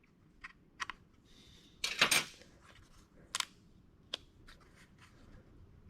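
Vinyl wrap film being cut and handled around a door handle: a few short, sharp scrapes and ticks, the loudest a brief rasp about two seconds in.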